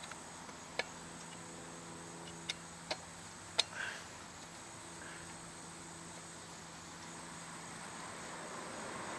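Four short, sharp clicks and taps of small metal parts and tools being handled while a backpack blower's muffler and spark arrestor are refitted, over a faint steady hum.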